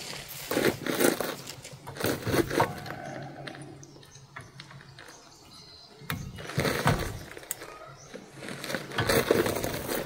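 Irregular clinks, knocks and scrapes of metal brake parts being handled and fitted: a brake caliper with its pads is worked over a front brake rotor, with short clattering bursts now and then.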